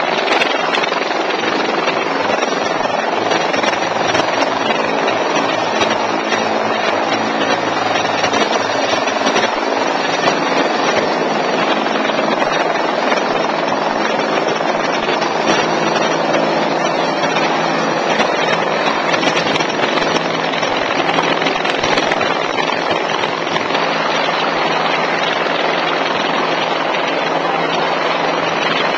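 Fire department rescue helicopter hovering low and close, its rotor and turbine engines making a loud, steady noise.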